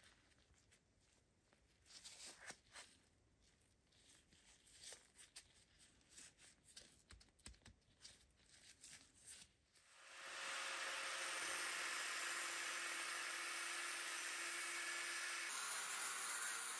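Faint rubbing and light clicks of gloved hands handling a steel hammer head. About ten seconds in, an abrasive cut-off wheel starts cutting into the forged steel hammer head with a loud, steady hiss over a faint motor whine, which shifts slightly near the end.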